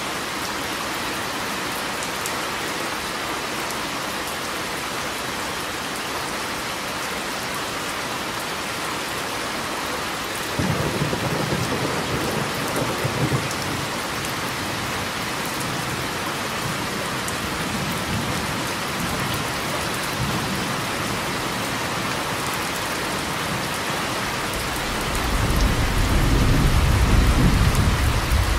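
Steady rain falling, with a low rumble of thunder about ten seconds in that lasts a few seconds, and a louder, longer roll of thunder near the end.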